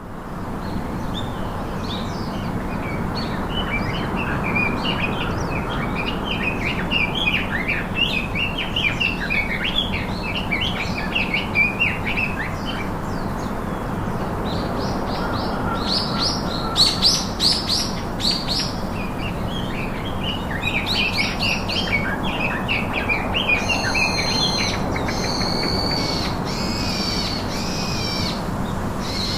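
Birds chirping and singing over a steady low hum, many quick calls overlapping. Near the end come louder calls repeated in a clear ringing tone.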